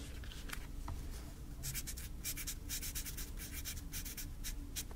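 Pen scratching on paper: quiet for the first second and a half, then a quick run of short, scratchy writing strokes until near the end.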